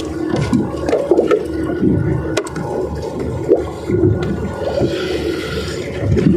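Water sloshing and gurgling close by, with a few sharp clicks or knocks.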